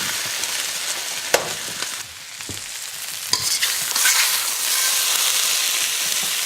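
Chicken, rice cakes and vegetables sizzling in a hot wok as they are stirred and scooped, with two sharp knocks of a utensil against the wok.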